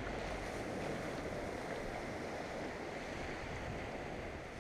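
Surf washing steadily onto a beach, with wind rumbling on the microphone.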